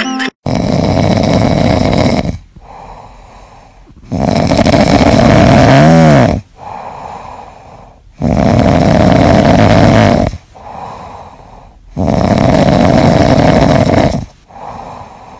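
Orange tabby kitten snoring in its sleep, mouth open. Four loud snores of about two seconds each come at a slow, even rhythm, with quieter breaths between them.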